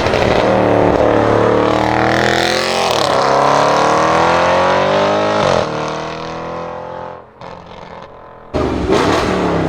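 Audi RS6 Avant C7's twin-turbo V8 through a Milltek exhaust, accelerating hard: the engine note climbs in pitch, drops at upshifts about three and five and a half seconds in, then fades away. Near the end another loud burst of engine sound starts abruptly.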